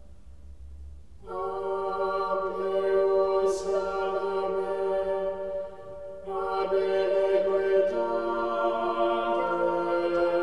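Soundtrack music of long, held chant-like vocal tones. They come in about a second in and break off briefly a little past the middle before going on.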